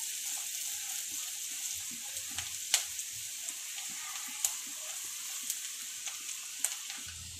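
Finely chopped onions sizzling steadily in hot oil in a non-stick kadai as they are sautéed toward golden brown, stirred with a silicone spatula. A few sharp ticks stand out, the loudest a little under three seconds in.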